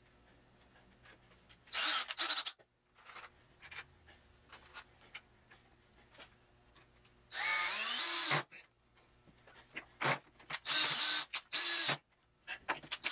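DeWalt cordless drill run in about five short bursts, drilling into a pine mounting block. The longest burst lasts about a second, and its whine rises as the motor spins up and drops as it winds down.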